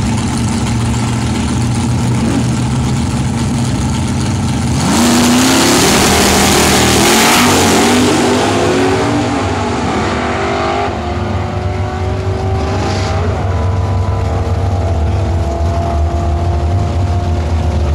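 Oldsmobile drag car's engine running at the starting line, then launching at full throttle about five seconds in, the loudest moment; its pitch climbs, breaks and climbs again through several gear shifts as it pulls away down the strip.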